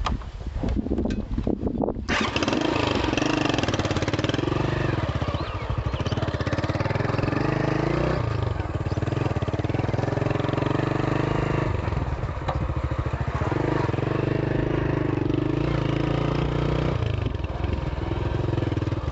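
Honda CB125 motorcycle engine putters unevenly at first, then about two seconds in picks up to a steady run under way. Its pitch drops and rises again a few times.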